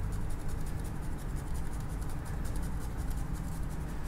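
Light, rapid dry scratching: a knife blade scraping flakes of gold leaf off its paper sheet. A steady low hum sits underneath.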